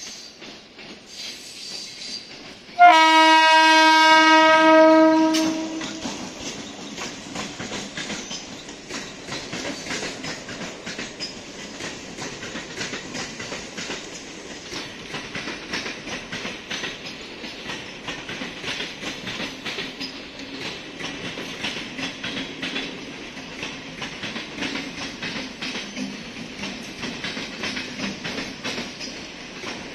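MEMU electric train sounding its horn once, a loud steady blast of about two and a half seconds a few seconds in, then rolling past with its wheels clattering over the rail joints.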